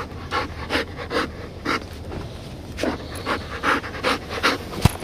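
A dog panting hard and close up, about two to three quick breaths a second, with a pause of about a second partway through. A single sharp tap comes near the end.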